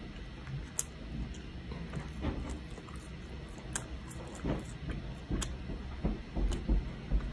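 Close-miked eating sounds of a person chewing a burger and fries, with scattered wet mouth smacks and clicks and a few soft low thumps near the end.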